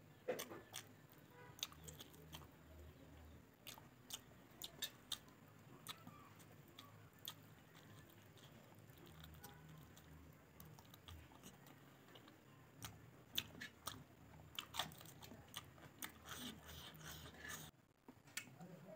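Close-up chewing of a mouthful of rice and pork: irregular soft crunches and wet mouth clicks, scattered unevenly, some sharper than others.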